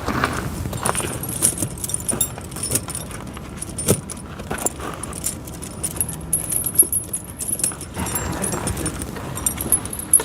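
Steel pewag Dopplespur tractor tire chain being handled, its links clinking and rattling in irregular bursts with occasional sharper knocks.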